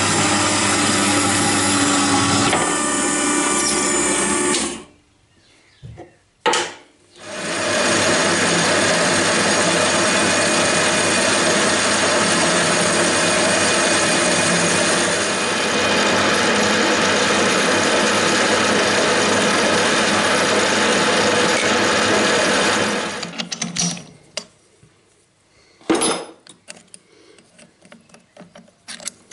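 A horizontal metal-cutting bandsaw runs, cutting through a round metal bar, for about five seconds. After a short pause and a click, a metal lathe runs steadily for about sixteen seconds, turning a small part held in a four-jaw chuck, then stops. A few light clicks and one sharp knock follow as the part is handled in the chuck.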